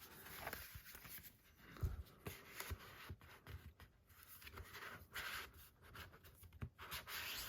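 Faint handling noises: soft rubbing and scraping with scattered light clicks as the Blu-ray steelbook cases and their packaging are handled and set down.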